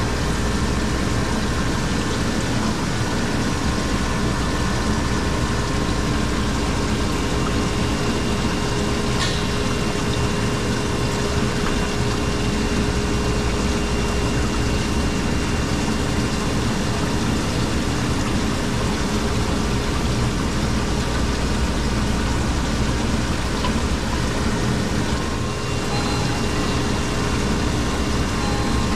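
Steady machinery hum with a few held tones from a Hoshizaki commercial ice machine running after its compressor was replaced.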